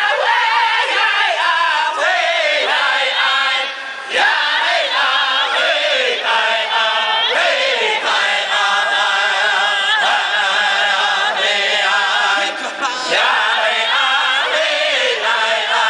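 Background music of several voices singing a chant together in long, high phrases, pausing briefly about four seconds in and again about thirteen seconds in.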